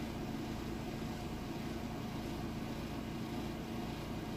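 Steady low hum and hiss of background room noise, with no distinct clicks or knocks.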